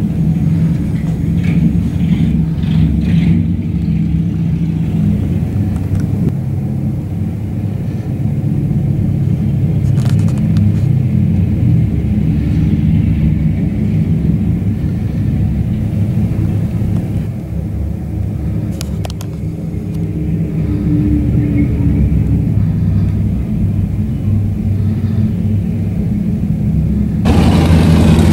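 Motorcycle engines running low and steady on the street. Near the end it gets louder, with a rush of noise as a vehicle comes close.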